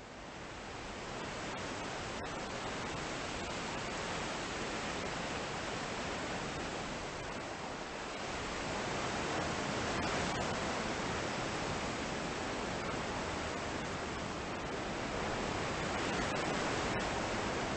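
Steady rushing noise with no tune or voice in it, fading in over the first two seconds and then holding level, with a few faint clicks.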